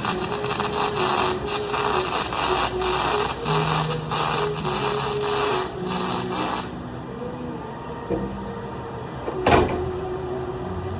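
Welding arc on aluminum, a dense crackling hiss that cuts off about two-thirds of the way through, over the steady hum of the welding machine. A single sharp knock comes near the end.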